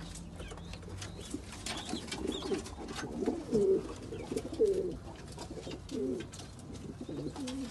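Domestic pigeons cooing in their loft: a run of wavering coos starting about two seconds in, over scattered light clicks.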